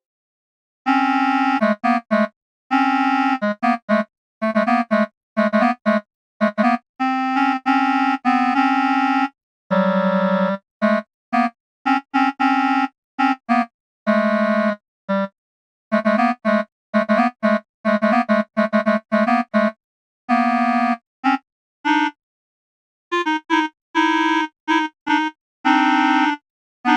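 Software MIDI player's clarinet voice playing notes around middle C in uneven bursts, sometimes two or more at once, each starting and stopping abruptly with silent gaps between.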